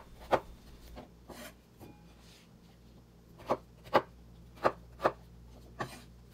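Kitchen knife cutting peeled raw potatoes on a wooden cutting board: sharp knocks as the blade comes down through the potato onto the board. There is one knock just after the start, then a quieter stretch, then five knocks at an uneven pace in the second half.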